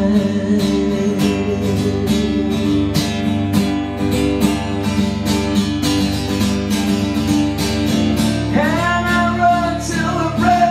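Live music with strummed guitar over a steady bass. The singer's held last word of a chorus line ends about half a second in, and the band plays on without words. A new held melodic line comes in near the end.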